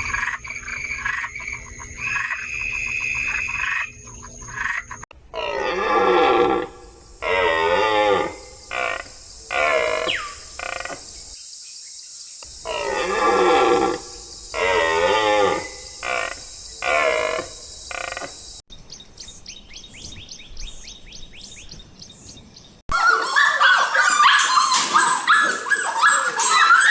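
A string of different animal calls cut one after another: first a short passage with steady tones, then a series of repeated pitched calls that bend in pitch, then a rapid pulsing trill, and near the end a dense, loud chorus of overlapping calls.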